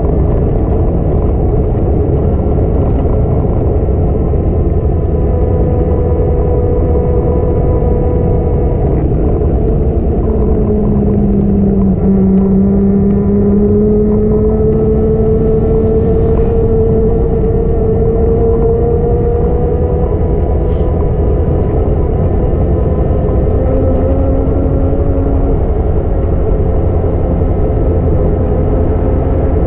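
Steady wind rumble on a GoPro action camera's microphone while riding a bicycle. Over it runs a faint hum whose pitch dips about a third of the way in and then slowly climbs back.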